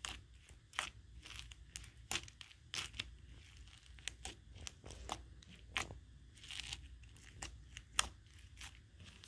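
Fluffy slime mixed with foam beads being poked and squeezed by fingers: irregular small pops and clicks, a few each second.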